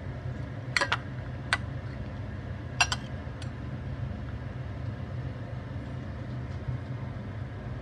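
A metal spoon clicking against a ceramic bowl four times in the first few seconds as it cuts a syrup-soaked lentil dumpling, over a steady low hum.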